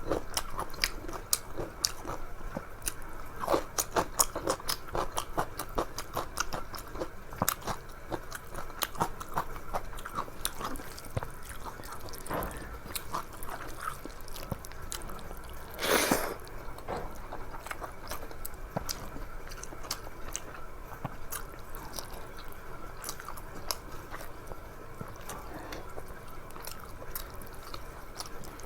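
Close-miked chewing and mouth sounds of a person eating a rice meal, with many small wet clicks and the odd crunch. One louder, brief noisy sound comes a little past halfway.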